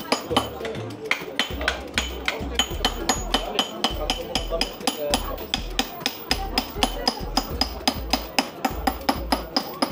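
Small hammer striking a steel punch to chase a relief design into a thin brass plate (kakma, repoussé chasing work): rapid, even metallic taps, about five a second.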